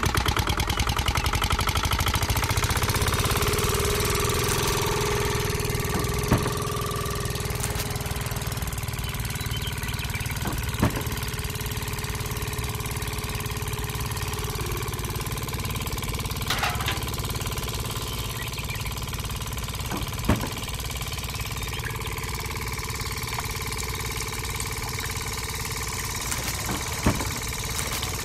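An engine running steadily, with a quick pulsing beat over the first couple of seconds and about five sharp clicks scattered through.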